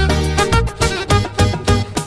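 Instrumental music with a steady beat and a bass line.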